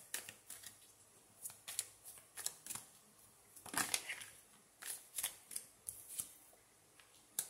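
Tarot cards being handled and laid out on a table: an irregular string of short card snaps and slides, loudest about four seconds in and again near the end.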